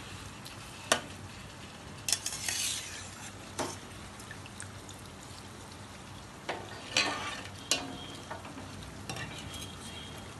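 Water at a rolling boil bubbling in a metal pot as soaked basmati rice is dropped in and stirred with a metal slotted spoon, which clinks and scrapes against the pot several times.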